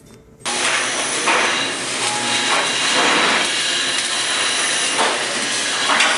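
Welding arc crackling and hissing steadily, starting abruptly about half a second in, with a few brief louder surges.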